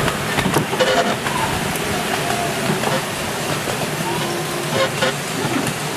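A 7¼-inch gauge miniature steam railway train running, heard from aboard its passenger cars: a steady rumble and rattle of wheels on the track with scattered clicks.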